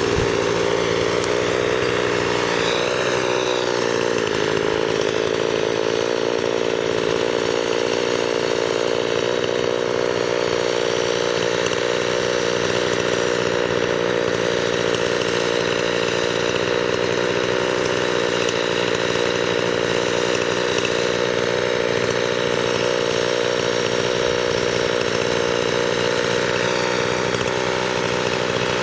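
Two-stroke chainsaw running at high revs, cutting through tree wood; its engine note sags briefly a few seconds in and again near the end as the chain bogs under load.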